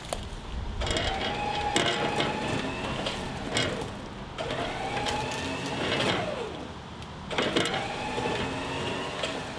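Electric winch motor whining as it pulls a vehicle in on its cable, run in three bursts of about three seconds, each starting with a rising whine as the motor spins up under load.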